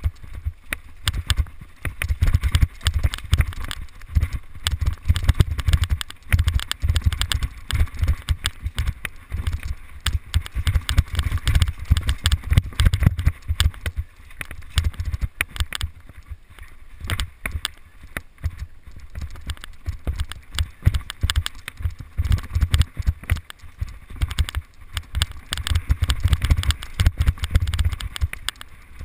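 Mountain bike riding fast down a dirt singletrack, heard from on the bike: a dense, irregular clatter of rattles and knocks as it rolls over bumps and roots, over a low rumble.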